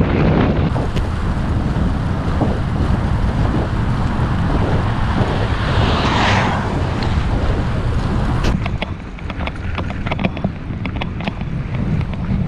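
Wind buffeting the microphone of a camera on a moving bicycle, with road noise throughout. About six seconds in, a car passes the other way, swelling and fading. In the last few seconds the wind eases and a run of light clicks and knocks is heard.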